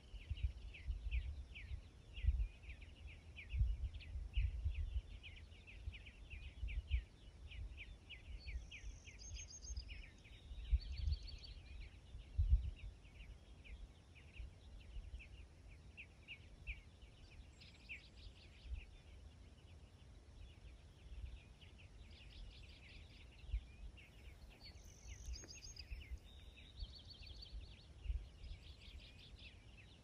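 Dawn chorus of several songbirds: a dense run of quick, high chips and calls that thins out about halfway, with a brighter, higher song phrase heard twice, about a third of the way in and again near the end. Irregular low rumbles on the microphone come and go and are loudest in the first half.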